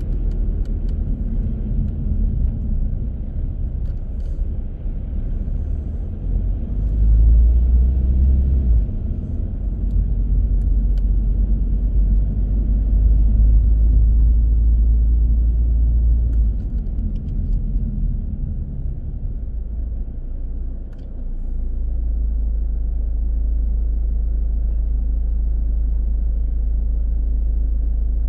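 Car driving on city streets: a low, varying rumble of road and engine noise that settles into a steady low hum about three-quarters of the way through.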